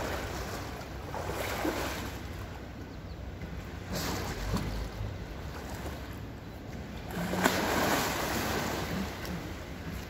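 Water splashing and sloshing as a polar bear cub swims and paddles in a pool, with a few louder splashes along the way.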